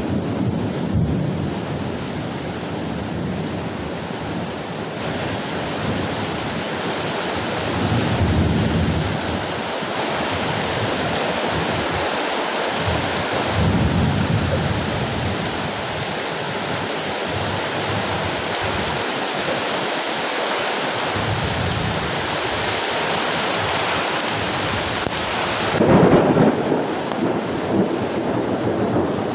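Heavy rain falling steadily during a thunderstorm, with thunder rumbling several times, the loudest roll near the end.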